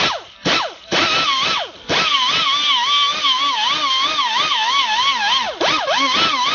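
Power tool spinning a slotted mandrel with emery cloth inside the rusty bore of a Model T spring perch, sanding out the rust. It gives three short bursts that fall in pitch as they spin down, then a long steady run whose whine wavers up and down as the load on the cloth changes.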